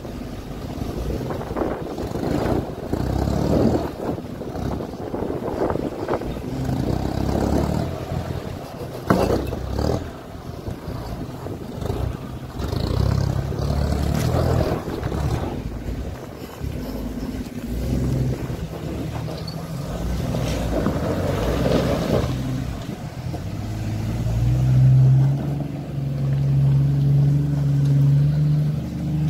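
An off-road 4x4's engine working hard as it climbs a steep, loose gravel slope, the revs rising and falling unevenly. Over the last few seconds it settles into a steadier, stronger drone.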